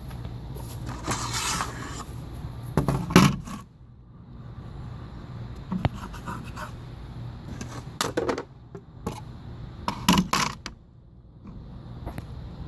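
A series of short scrapes and knocks from objects being handled, over a steady low hum.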